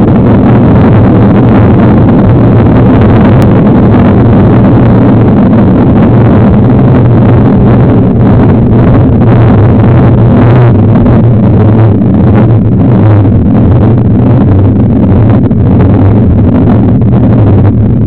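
Loud, steady wind rush and rumble on a bike-mounted camera's microphone while riding a mountain bike, near full scale throughout.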